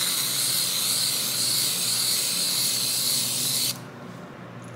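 Aerosol can of nitro creamer spraying foam into a glass: a steady hiss that cuts off suddenly a little over three and a half seconds in.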